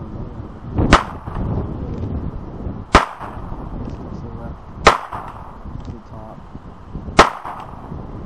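Four pistol shots fired one at a time, about two seconds apart. Each is a sharp crack followed by a short echo.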